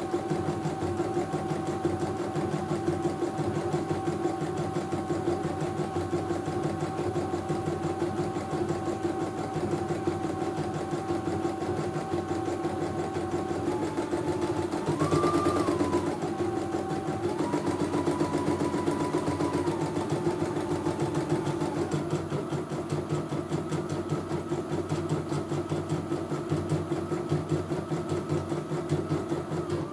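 CNY E900 computerized embroidery machine stitching a test design: a steady, rapid needle rhythm under a motor whine. The whine's pitch steps up and down a few times about halfway through.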